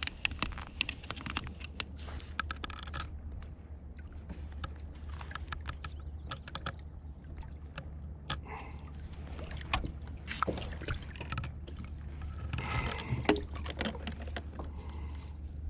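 Fishing tackle and kayak being handled while a fish is reeled up to the kayak: many small clicks and knocks over a steady low rumble. A louder burst of splashing and rattling comes about thirteen seconds in, as the fish is lifted out of the water.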